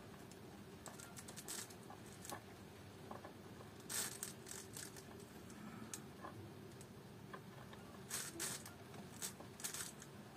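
Solder melting on a soldering iron at a wire joint in a metal terminal sleeve: faint, irregular crackles of the flux as it smokes, the loudest about four seconds in and a few more near the end.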